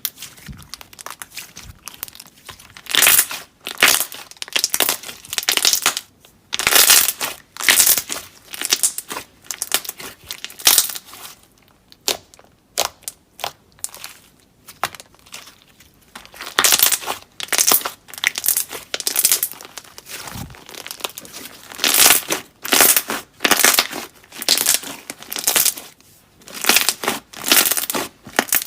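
Slime being squeezed and pressed by hand, making irregular noisy crackles in quick runs, with a few short lulls.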